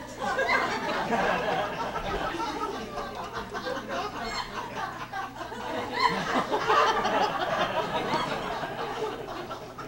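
Theatre audience laughing, breaking out suddenly and swelling again about six seconds in.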